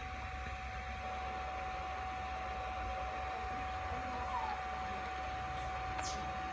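Quiet room tone: a steady high-pitched whine with a low hum beneath it, and a faint click about six seconds in.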